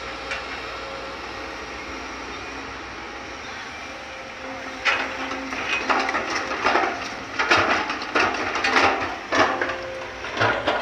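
Sumitomo hydraulic excavator's diesel engine running steadily. From about five seconds in, loads of soil and stones drop out of its bucket into the steel bed of a dump truck with a run of loud, irregular clattering thuds.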